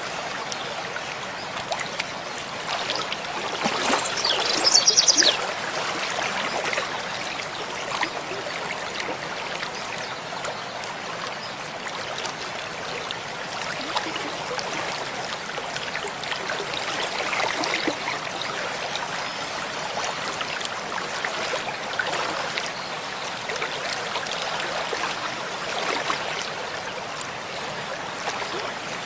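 A small stream trickling and gurgling steadily. About five seconds in there is a brief, fast, high-pitched trill.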